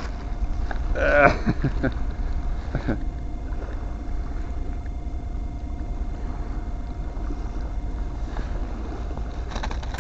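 Wind buffeting the camera microphone: a steady low rumble, with a short louder sound about a second in.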